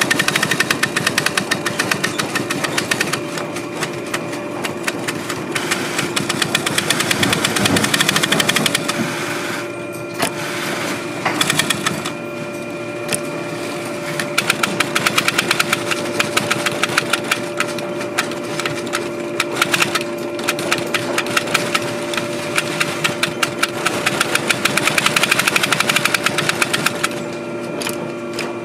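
Industrial post-bed sewing machine stitching leather boot uppers: a fast, even ticking of the needle in runs of several seconds, stopping briefly a few times, over a steady hum.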